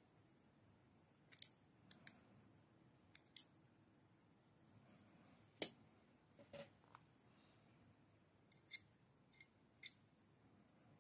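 Scattered sharp metallic clicks and taps from handling the small steel parts of a disassembled Maxace Neptune knife, about a dozen at uneven intervals, with a run of lighter ticks near the end.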